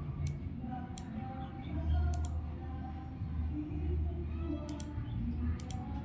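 Sharp clicks of a laptop's pointer buttons: two single clicks, then three quick double clicks, over a low steady rumble.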